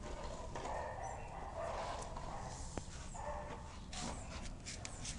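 A dog barking on and off.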